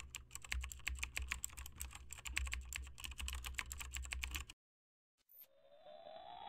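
Keyboard typing sound effect: rapid key clicks that stop abruptly about four and a half seconds in. About a second later a rising electronic tone sweep begins.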